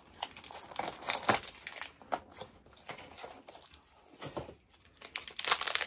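Packaging crinkling and tearing as it is opened by hand, in irregular rustling bursts that grow louder near the end.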